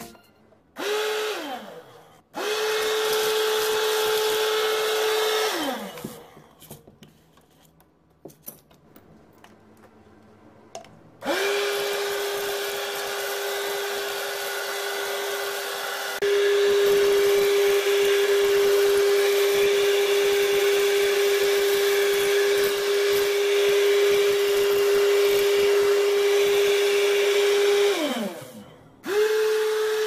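Homemade PVC-pipe vacuum cleaner driven by a 775 12-volt DC motor, running with a steady whine and rush of air. It is switched off and on several times, and each time it stops the pitch falls as the motor spins down.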